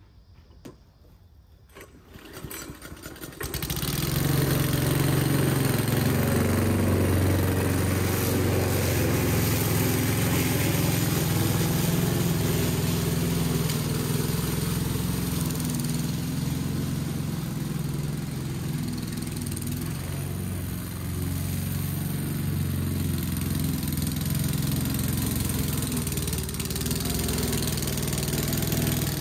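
Aldi Ferrex 20-inch self-propelled petrol lawn mower engine starting up, catching about three and a half seconds in, then running steadily.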